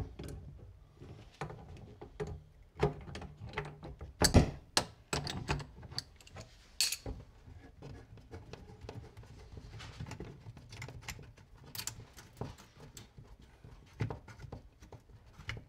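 Adjustable wrench clicking and knocking against the brass fittings of a gas stove's flexible connector as the union nut is broken loose, then the nut being turned off by hand: scattered small metallic clicks and taps, the loudest about four seconds in. The gas valve is already shut off.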